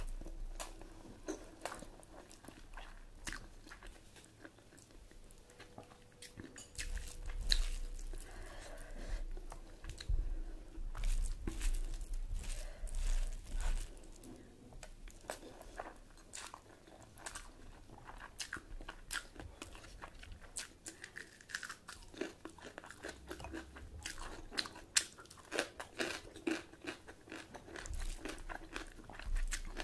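A person eating close to the microphone: chewing and biting with crunching and many short clicks, mouth sounds of a meal of mutton curry with rice and puri.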